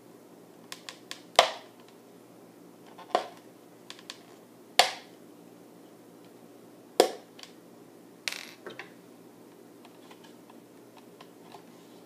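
A plastic cup and wire handled and worked by hand: a series of sharp clicks and knocks, about five louder ones a second or two apart, with lighter ticks between them.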